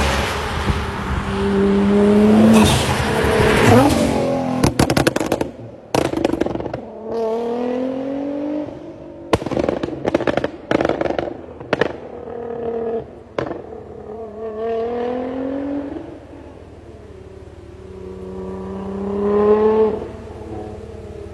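Tuned high-performance car engine being revved hard several times, with loud exhaust pops and crackles as the revs drop, thickest a few seconds in and again around the middle. There is a quieter lull late on, then one more rev rising.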